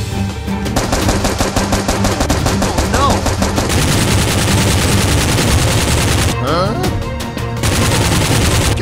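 Rapid automatic-gunfire sound effects dubbed over the action, with background music underneath. The firing lets up briefly about six seconds in, then starts again.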